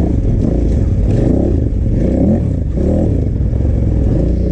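KTM 990 Adventure's V-twin engine running under throttle, its revs rising and falling several times as it is ridden over rough ground.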